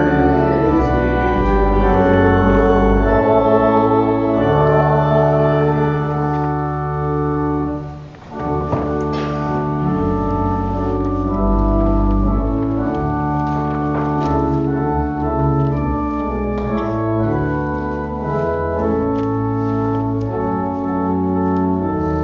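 Church organ playing sustained chords over a moving bass line, with a short break between phrases about eight seconds in.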